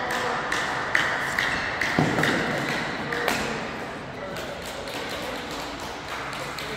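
Badminton doubles rally: rackets striking the shuttlecock in a quick string of sharp hits, with shoes squeaking on the court, until the rally ends about three and a half seconds in.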